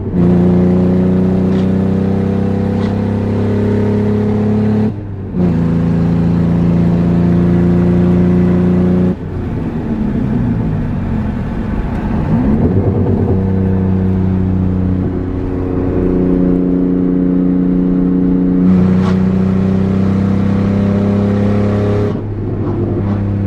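1994 Ford Probe GT's 2.5-litre V6 running with no exhaust system fitted, driven on the road. The steady engine note breaks briefly about five and nine seconds in and again near the end, and wavers in pitch in the middle.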